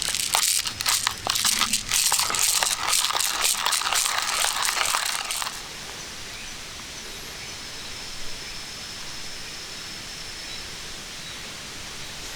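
Rustling, crinkling handling noise with many small clicks for about the first five and a half seconds, then it stops, leaving a steady faint hiss with a thin high steady tone.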